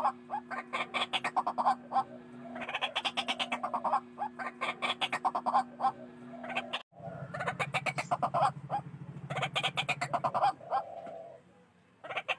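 White-breasted waterhens calling in bouts of rapid, repeated harsh notes, one bout after another. The sound drops out suddenly about halfway through, as at a splice in a looped recording, and the calls pause for about a second near the end.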